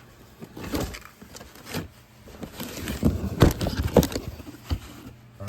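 A cardboard box and its packaging being handled and opened: irregular knocks, scrapes and rustles, loudest about three to four seconds in.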